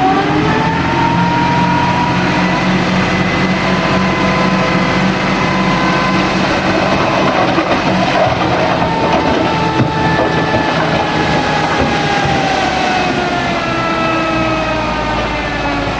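Heavy construction machine's diesel engine running under load. Its pitch climbs in the first second, holds fairly steady, then sinks gradually over the last few seconds.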